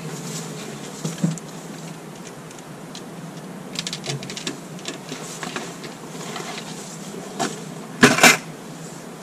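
Fishing gear being handled and put down: scattered clicks and rattles, then a loud double knock about eight seconds in as the plastic bucket and landing net are set down on the ground.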